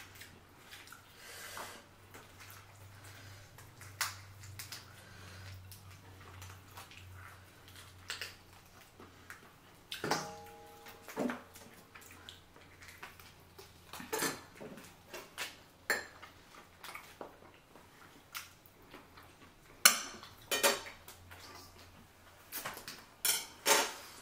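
Scattered cracks and clicks of king crab and lobster shells being broken open and picked at, with clinks of utensils against dishes. One clink rings briefly about ten seconds in, and the cracking gets louder and more frequent near the end.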